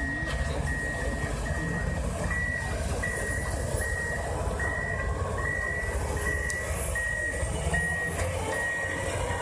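Ponsse forwarder's reversing alarm beeping, a single high tone repeating evenly about every three-quarters of a second, over the machine's low engine running.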